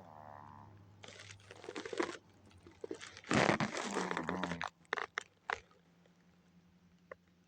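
A sleeping pet snoring like a human: a rasping breath about a second in, then a louder, longer one at about three seconds that ends in a wavering, rattling snore, followed by a few small clicks.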